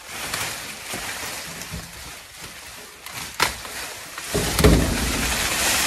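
Raspberry canes and leaves rustling as someone pushes into the bush, with a few sharp snips of long-handled loppers cutting old canes at the base. The rustling grows loudest in the last second and a half.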